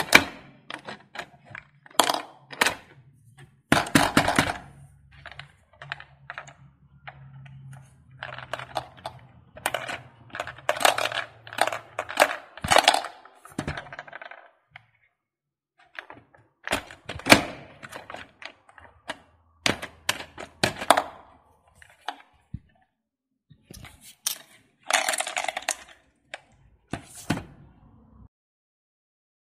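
Small plastic toy ball claw machine being played: its buttons click and plastic balls clatter as they drop into the tray. A low steady hum runs under the clicks from about four to twelve seconds in.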